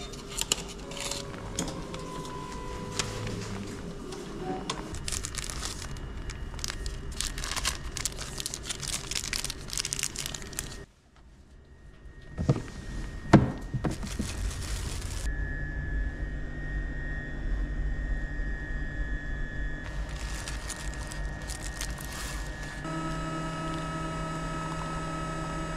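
A sequence of handling noises: clicks and crinkling, then two sharp knocks and a steady hum. Near the end a coffee machine whirs with a steady pitched drone as it dispenses coffee into a paper cup.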